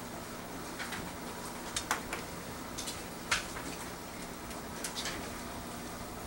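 Quiet classroom room tone: a steady low hum with scattered small ticks and scratches from pencils writing and papers being handled, one sharper click about three seconds in.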